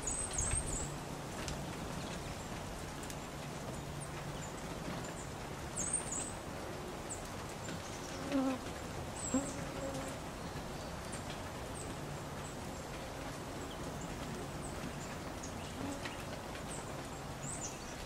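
Small songbirds chirping now and then in short, very high calls while feeding at a hanging seed feeder, over a steady low hum and hiss. A couple of brief louder, lower sounds come about halfway through.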